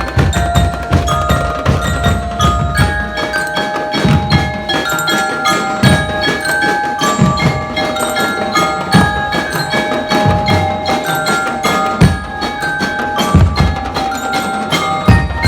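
Drum and lyre band playing: metal bell lyres ring out a melody over dense, steady drumming.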